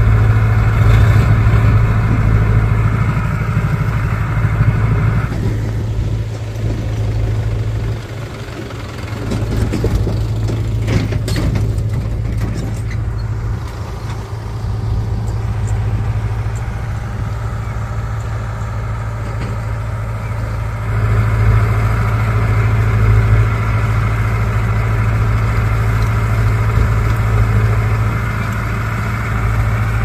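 Diesel engines of a Bull backhoe loader and farm tractors running steadily, with a strong low hum. The hum eases off about six seconds in and comes back louder from about twenty seconds in.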